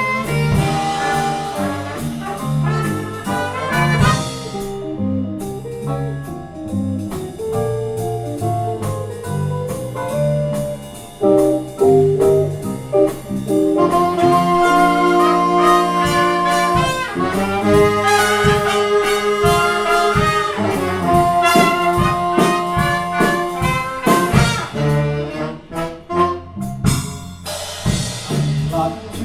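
Live jazz band playing an instrumental passage without vocals: brass horns play held chords and lines over bass and drum kit.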